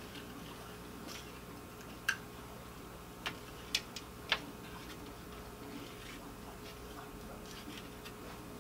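A few sharp, light clicks as a short ice-fishing rod and its wire spring bobber are handled, four of them about two to four and a half seconds in, over a faint steady room hum.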